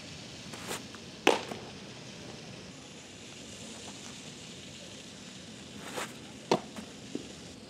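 Two baseball pitches popping into a catcher's mitt, about five seconds apart, each a sharp smack. A softer scuff comes shortly before each one.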